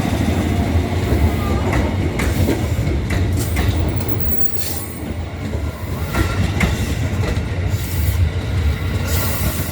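Electric train running on the rails: a heavy low rumble with irregular wheel clacks over the rail joints, and a thin high wheel squeal that fades in the first second.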